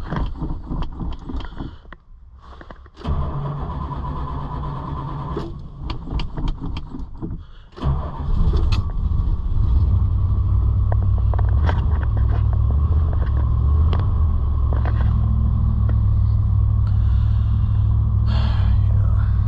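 Keys jangling, then a 1977 Dodge Monaco's 360 two-barrel V8 cranking on a cold start. It catches about eight seconds in and settles into a steady idle.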